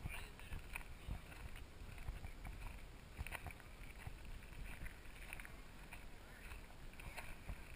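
Faint outdoor ambience: a low rumble of wind and handling noise on a handheld GoPro's microphone, with scattered faint clicks.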